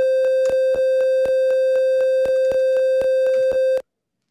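MakeCode micro:bit simulator alarm: a steady, buzzy electronic beep at High C repeated as half-beat notes, with a small click at each note start about four times a second. It cuts off suddenly near the end as button A is pressed and the while loop stops the alarm.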